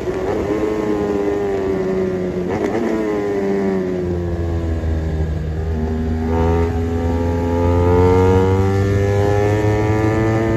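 BMW 1200 motorcycle engine under way: its pitch falls off over the first few seconds, then climbs as it accelerates through the middle of the ride before levelling off.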